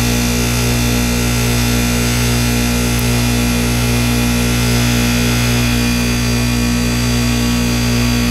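Goodman heat pump outdoor unit running in defrost mode: a loud, steady electrical hum from the compressor with a hiss over it, while the iced coil steams.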